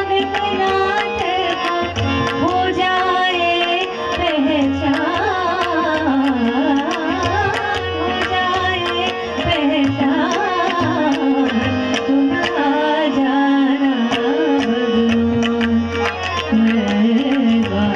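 Woman singing a Hindustani classical khyal, a gliding, richly ornamented melodic line, over a tanpura drone, with the tabla playing a steady stream of strokes.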